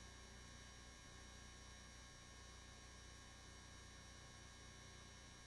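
Near silence: a faint, steady electrical hum with several fixed tones, the noise floor of a radio audio feed.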